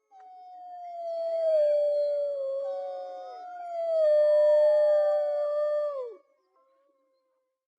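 Wolves howling: a long, loud howl that starts high and slides slowly down, with other howls overlapping it at different pitches. The calls end about six seconds in with a quick downward drop.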